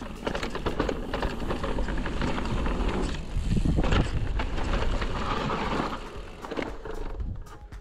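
Mountain bike ridden fast down a dirt forest trail: tyres rolling over the ground with rapid clicks and rattles from the bike, over a low rumble, easing off near the end.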